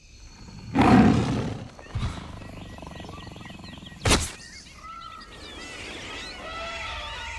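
Echoing sports-hall sounds: a loud roar-like burst about a second in, a thud at two seconds, and the sharp smack of a ball kicked about four seconds in, followed by many short high squeaks.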